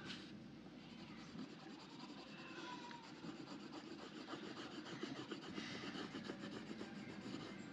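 Colouring on paper by hand: quick back-and-forth strokes of a pencil or felt-tip make a soft, scratchy rubbing.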